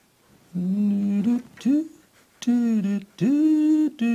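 A person humming a tune. After a brief silence come four held notes with short gaps between them, and the last one, near the end, is higher and the longest.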